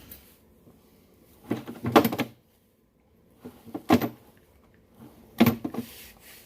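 Sharp clicks and knocks of a hand tool working on wire in three short bursts, as insulation is stripped from headlight wires without wire strippers.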